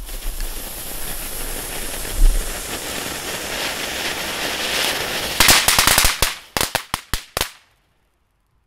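Lesli Vegas Volcano firework fountain burning with a loud, steady hiss of spraying sparks. About five seconds in, it goes over into a quick run of about a dozen sharp crackling bangs, then stops abruptly near the end.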